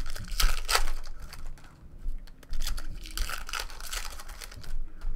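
Foil wrapper of a Topps Chrome baseball card pack crinkling as it is torn open by hand, in a run of short bursts.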